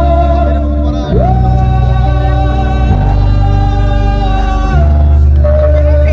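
Music: a held melody line over a steady low drone, changing note a few times, with a sliding rise to a higher note about a second in.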